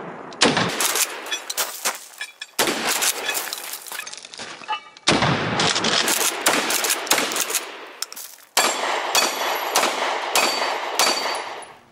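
Rapid gunfire in a series of cut-together bursts: shotgun shots, then pistol shots near the end, each shot echoing briefly.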